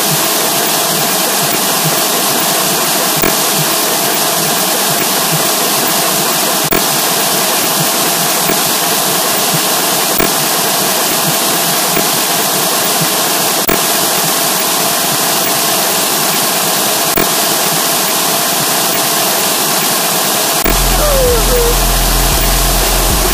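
Loud, steady distorted noise with a faint hum-like tone, repeating as a loop with a click about every three and a half seconds. A deep pulsing bass comes in near the end.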